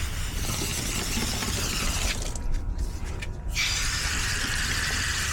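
Spray hissing onto a dirty air-conditioner condenser coil as it is cleaned. The hiss stops a little over two seconds in and starts again about a second and a half later.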